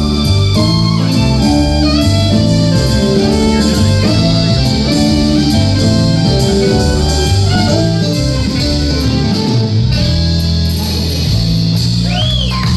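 Live band playing a blues-style tune, a guitar carrying the lead over a bass line that steps from note to note.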